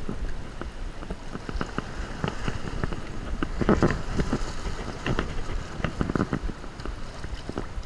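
Shallow saltwater splashing and sloshing in irregular bursts as a hooked summer flounder is lifted from the water, busiest and loudest a little before halfway, over a steady low rumble of wind on the microphone.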